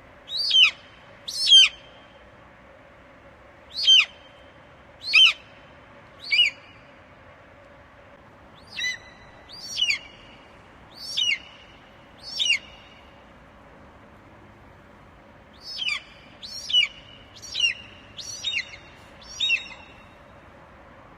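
Eagle calling: a series of short, high-pitched calls, each falling quickly in pitch, given in bursts of two to five with pauses between.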